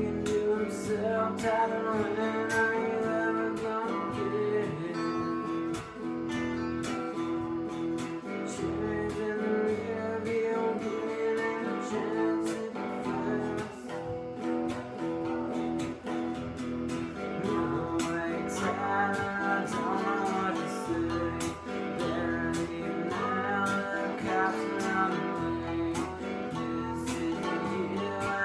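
Two electric guitars playing together: one strumming chords in an even rhythm, the other picking a moving melodic line over them.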